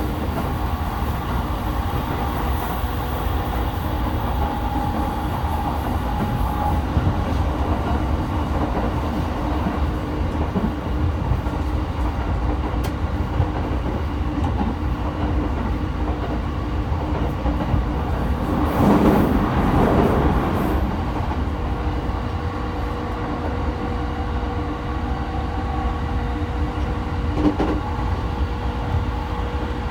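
Running noise of an E217-series commuter train heard from inside the car: a steady rumble of wheels on rail with a few steady humming tones from the running gear. Roughly two-thirds of the way through, a louder rushing swell lasts about two seconds.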